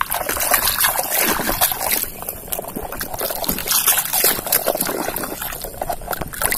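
Water splashing and sloshing irregularly as a plastic toy car is rubbed and swished back and forth by hand in shallow water.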